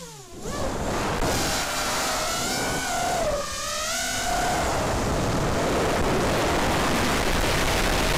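FPV racing quadcopter's brushless motors (Cobra 2204 2300 kV spinning DAL 4x4.5 three-blade bullnose props) in flight, heard from the onboard camera: a whine of several tones that rises and falls in pitch with the throttle over a steady rush of prop wash and wind. It throttles up about half a second in and dips and climbs again around the middle.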